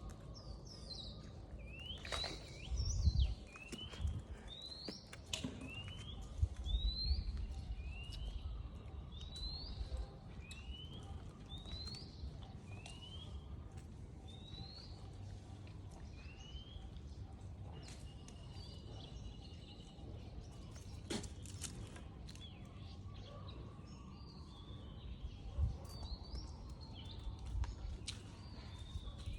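A bird repeating a short rising whistled call, about one a second, which stops about halfway through, over outdoor ambience. A few low rumbles come in between.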